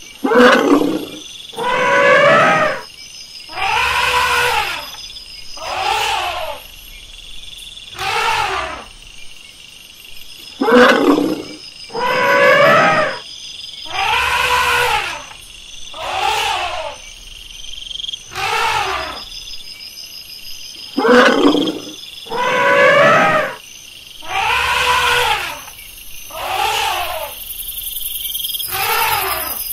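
Elephants trumpeting again and again: about fifteen loud calls, one every two seconds or so, each about a second long and rising then falling in pitch.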